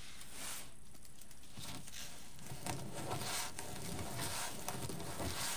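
Faint, irregular rustling and crinkling of a roll of poly deco mesh being unrolled and handled by hand, busier after about a second and a half.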